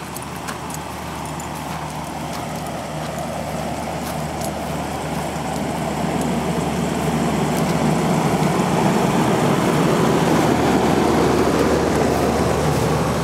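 Outdoor air-conditioner condenser units running: a steady hum with fan rush that grows louder over the second half as they are passed closely.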